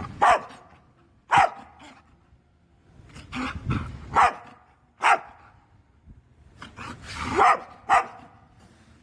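American Pit Bull Terrier barking: about six loud, single deep barks at uneven intervals, some coming in pairs.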